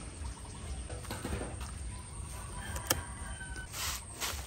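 Chickens clucking, with short calls and a sharp click about three seconds in.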